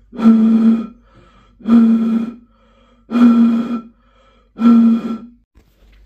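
Empty glass bottle blown across its mouth four times, about a second and a half apart. Each blow gives a steady low tone lasting under a second, with a rush of breath behind it.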